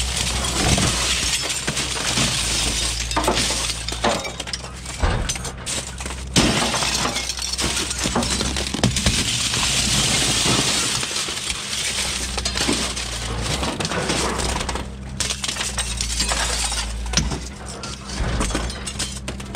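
Shattered window glass clinking, crunching and breaking as aluminum-framed windows are pulled from a pile of broken panes. A steady low hum runs underneath.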